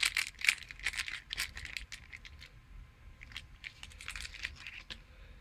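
Clear plastic bag crinkling as a wall charger is handled and unwrapped from it, in quick irregular crackles that are busiest in the first two and a half seconds, with a few more around four seconds in.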